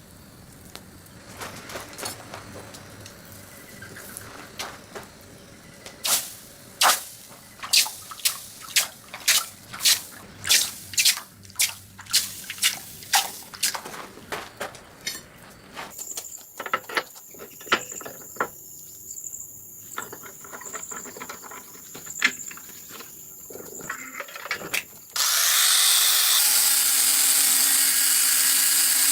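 Hammer blows on steel in a blacksmith's forge, about two sharp strikes a second for roughly ten seconds. Then a thin steady high whine with scattered clicks, and about four seconds before the end a loud steady hiss sets in suddenly.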